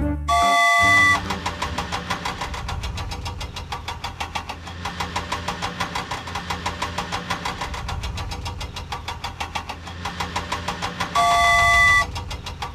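Engine-and-horn sound effect for a toy JCB backhoe loader: a horn blast held for about a second, then a fast, even engine chug, and a second horn blast near the end.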